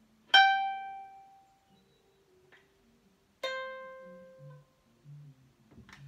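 Ukulele playing two single plucked notes: a higher note just after the start, then a lower one about three seconds later, each left to ring and fade. They are slow notes of a melody transcribed from the coronavirus genome sequence.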